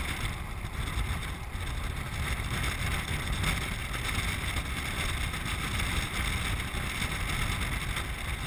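A land sailer (land yacht) under way on a dry lake bed, heard from a GoPro mounted on its mast: a steady low rumble with wind rushing over the camera.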